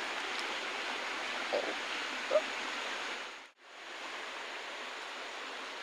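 Shallow forest stream running over stones, a steady rush of water, with two brief sounds over it. The sound drops out for a moment about three and a half seconds in, then the water resumes slightly quieter.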